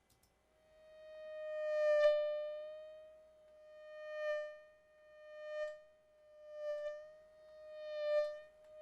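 Synthesized mosquito whine made in Logic Pro X: a steady buzzing tone that swells loud and fades away about six times, like a mosquito flying close past the ear and off again.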